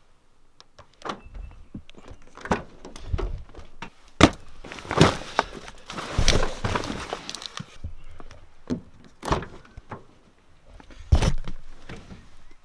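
Someone getting into a car: the car door opens and shuts, making several sharp clunks and thuds, the loudest about four seconds in and another near the end, with rustling movement in between.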